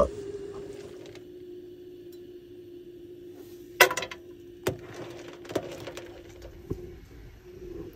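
A handful of sharp clicks and clinks of small hard objects being handled, the loudest about four seconds in, over a steady low hum that fades near the end.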